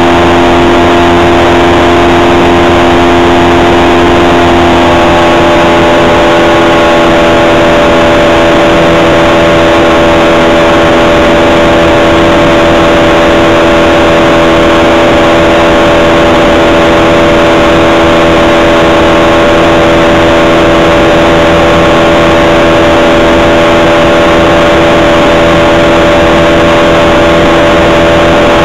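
Light aircraft's piston engine and propeller running steadily in flight, very loud inside the cockpit.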